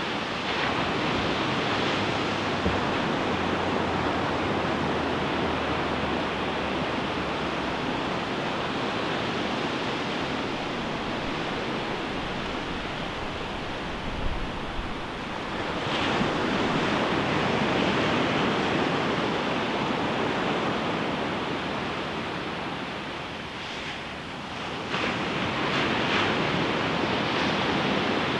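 Ocean surf washing onto a beach: a steady rush of waves, with fresh swells breaking about halfway through and again near the end.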